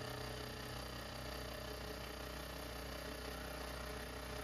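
Milling machine running with its face mill taking a slow, shallow pass along the side of a cast brass plane body: a steady hum that holds unchanged.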